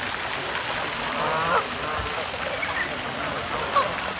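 Ornamental water fountain splashing steadily, with a brief pitched call or voice about a second in.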